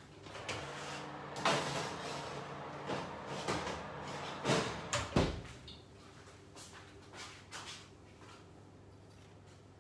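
Kitchen oven door and baking tray being handled: a run of clatters and knocks, then the door shutting with a low thud about five seconds in, followed by a few lighter clicks.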